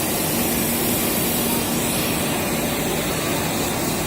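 Steady running noise of cable production machinery on a factory floor: an even hiss with a constant low hum, with no breaks or strikes.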